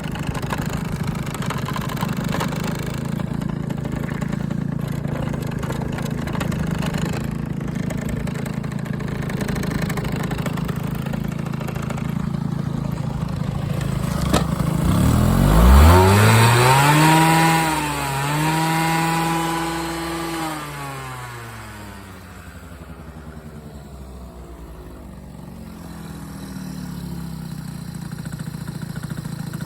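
Engine idling, then revved up sharply once about halfway through, held high for several seconds with a brief dip, and let fall back to a quieter idle. The seller says this engine has an abnormal noise and a slipping clutch.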